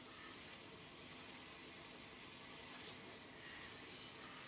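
A steady high-pitched hiss with nothing in it that starts, stops or beats; no sawing or engine rhythm stands out.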